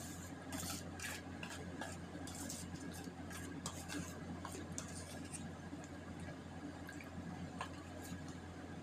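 Steel spoon stirring and scraping a wet multani mitti (Fuller's earth) clay paste in a stainless steel bowl, with wet mouth sounds of the paste being eaten: scattered soft clicks and squelches, busiest in the first few seconds, over a steady low hum.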